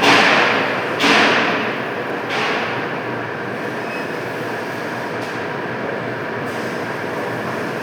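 Metalworking shop machinery: three ringing metal clanks in the first two and a half seconds, each dying away, over a steady machine drone that carries on evenly.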